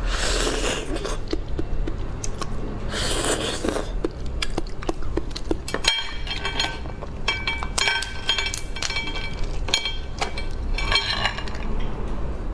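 A raw prawn being eaten and peeled by hand: a wet bite into the flesh, then a long run of crisp clicks and crackles as the shell is pulled apart.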